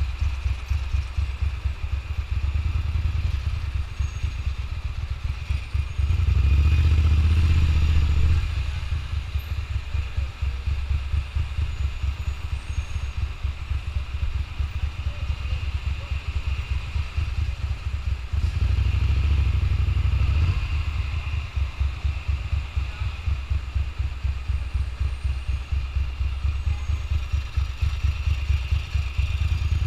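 Ducati motorcycle engine running at low speed with a low, pulsing beat. It swells louder twice as the throttle is opened, about six seconds in and again near the twenty-second mark, each time for about two seconds.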